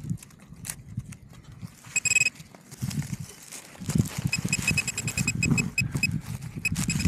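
Metal detector beeping: one short high beep about two seconds in, then a run of short, rapidly repeated beeps from about four seconds on, the tone that signals metal in the ground. Under the beeps are low thuds and rustles of soil being dug with a hand pick and handled.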